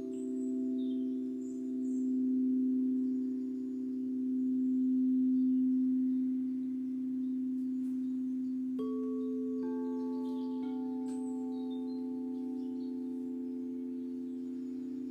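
Singing bowls ringing with long sustained low tones that slowly swell and fade; about nine seconds in, three more strikes follow about a second apart, adding higher ringing tones.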